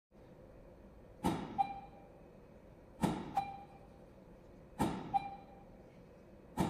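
Medium-format digital camera's shutter firing four times, about 1.8 seconds apart. Each shot is a sharp click followed about a third of a second later by a second, softer click and a short beep.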